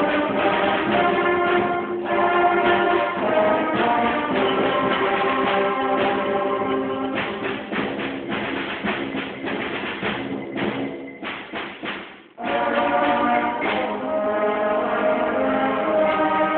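Concert band of brass, woodwinds and percussion playing. About seven seconds in it thins to a quieter passage with scattered percussion hits, breaks off briefly a little after twelve seconds, then the full band comes back in.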